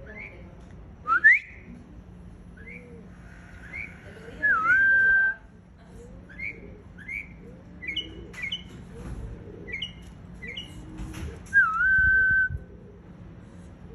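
Mockingbird singing: a loud rising whistle, then a string of short chirped notes, with two long whistled notes that dip and then hold steady, one about four seconds in and one near the end.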